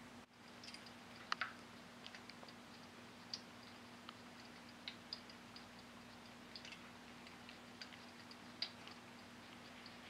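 Wopet stainless steel pet water fountain running quietly under a faint steady hum, with irregular soft ticks and little splashes of water as cats paw at and lap from its stream.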